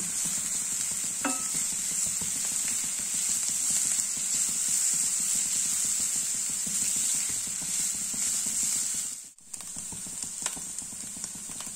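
Grated coconut, onion and green chillies sizzling in hot coconut oil in a non-stick pan while being stirred with a wooden spatula, a steady frying hiss with light scraping. The sound drops out for a moment about nine seconds in and comes back a little quieter.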